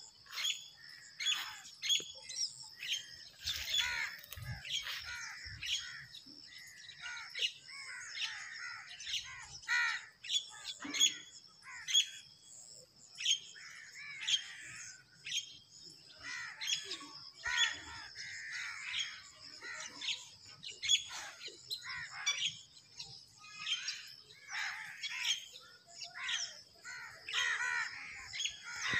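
Many birds chirping and calling, short calls following one another without a break, over a steady high-pitched whine.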